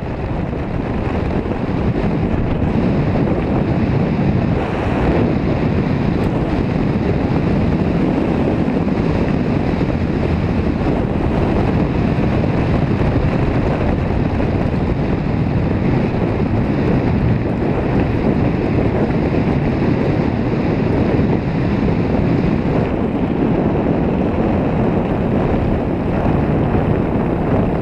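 Wind rushing over the microphone of a camera riding on a mountain bike coasting fast downhill on a dirt road: a steady, loud, low rumble.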